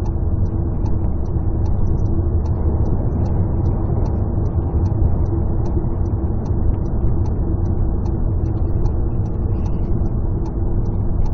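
Steady road and engine noise inside a moving vehicle's cabin, with a faint, regular ticking two to three times a second.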